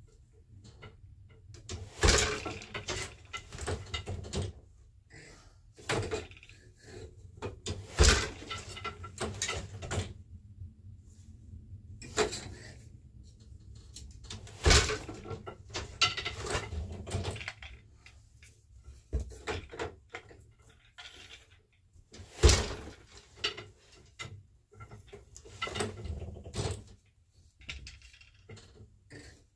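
A multi-shaft loom being worked for plain weave: four loud sharp knocks about six to seven seconds apart, with softer clatter and the sliding rustle of a boat shuttle and cotton yarn between them.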